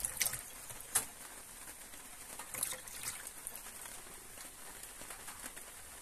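Faint dripping and trickling of water in a stainless steel sink, with a few light clicks; the sharpest comes about a second in.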